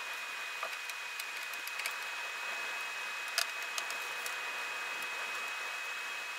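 Steady hiss with a faint high-pitched whine, and scattered light clicks and ticks from small screws and a screwdriver being handled while fastening a graphics card. The loudest click comes about three and a half seconds in.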